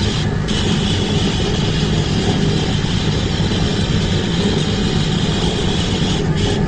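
Laser engraving machine running: a steady machine hum under a high hiss, the hiss dropping out briefly just after the start and again near the end.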